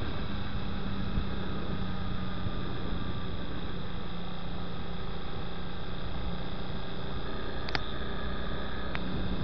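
Honda Twister 250 motorcycle riding at a steady cruise: the single-cylinder engine holds an even hum under a constant rush of wind and road noise.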